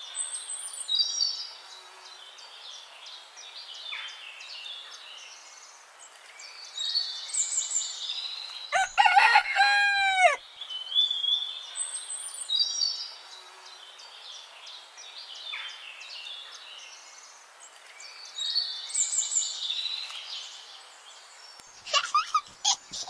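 A rooster crowing once, about nine seconds in, over songbird chirps that come in clusters about every six seconds. A burst of short, sharp sounds comes near the end.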